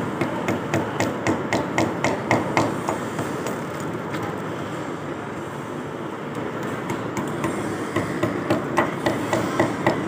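Small hammer tapping wall plugs into drilled holes in a wall: quick, even light blows, about three a second, in two runs, one in the first few seconds and another starting about seven seconds in.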